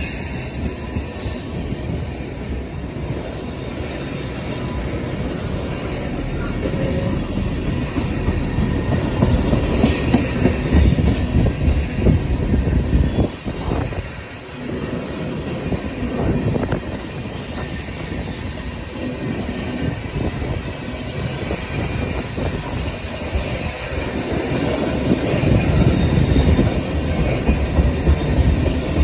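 Ethanol tank cars of a freight train rolling past at close range: a steady rumble of steel wheels on rail, with faint, short high-pitched wheel squeals now and then and a brief dip in the rumble about halfway through.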